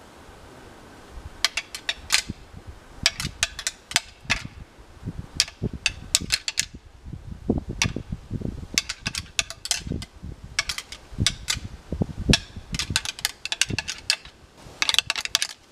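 Rapid, irregular series of sharp clicks and knocks mixed with low thuds, starting about a second and a half in and continuing to the end.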